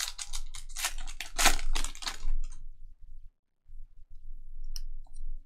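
Foil wrapper of a Topps Merlin Chrome trading-card pack crinkling and tearing open for about two seconds, loudest about one and a half seconds in. Fainter handling of the cards follows, with a single click near the end.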